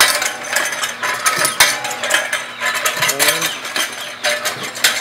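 Homemade percussion well-drilling machine running: its shaft and pulley wheels turn while a freewheeling arm is pushed round by an angle bar, giving irregular metallic clanks, clicks and rattles.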